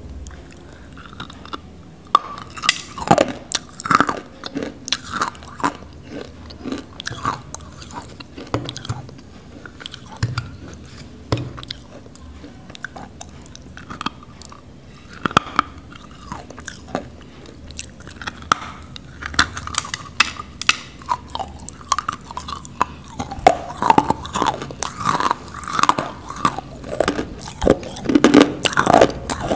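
Crunching bites and chewing of a chunk of nakumatt edible clay, close to a lapel microphone: a run of sharp cracks and crackles that grows denser and louder in the last few seconds.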